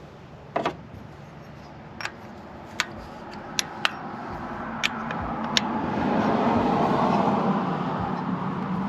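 A handful of sharp clicks and clinks, then a broad rushing noise with a low hum that builds for a few seconds and eases near the end, like a vehicle going by.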